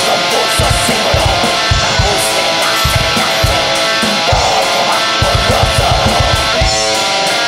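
Raw black metal recording: heavily distorted electric guitars over a drum kit, with a quick run of kick-drum beats about five seconds in.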